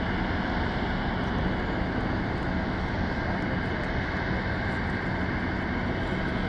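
Jet engines of a twin-engine airliner climbing away, a steady rush of noise with a faint hum running through it.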